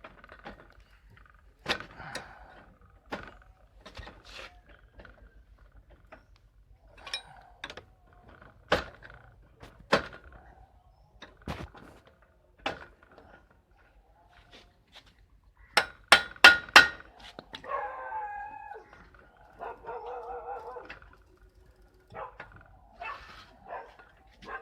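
Spanner being fitted to a bicycle pedal's axle and worked to loosen it: scattered metallic clicks and knocks, with a quick run of four sharp strikes about sixteen seconds in.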